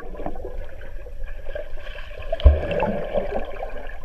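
Muffled underwater sound in a swimming pool: bubbling and water churned by swimmers, with a low thump about two and a half seconds in.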